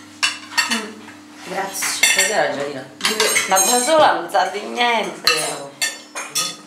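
Forks and knives clinking and scraping on plates and a metal serving platter during a meal, with many short irregular clicks.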